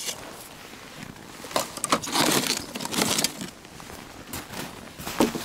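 Ice-fishing gear being handled and packed into a plastic sled on snow: irregular rustling and scraping in bursts, busiest from about one and a half to three seconds in, with a short louder knock near the end.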